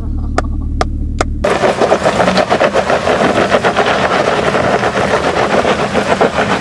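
Off-road vehicle engine running with a steady low hum and a sharp regular tick about two and a half times a second. About a second and a half in, this gives way to a dense, rough crackling rush of noise as a Jeep crawls over granite boulders.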